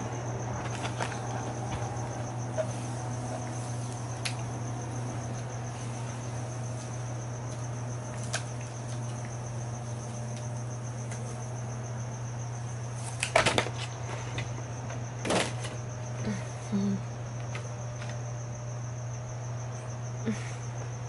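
Paper card being peeled off a sticky Cricut cutting mat and handled, with a few sharp crackles about two-thirds of the way in. Under it run a steady low hum and a constant high-pitched pulsing tone.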